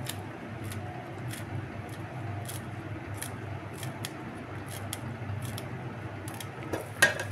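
Kitchen knife cutting fresh mint leaves held between thumb and blade, a crisp snip about every half second, over a steady low hum. A louder click comes near the end.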